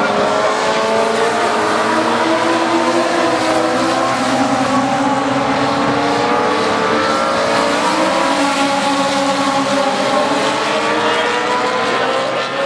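Several Legends race cars circling a short oval, their Yamaha four-cylinder motorcycle engines running at high revs. Several engine notes overlap, each rising and falling as the cars come past and move away.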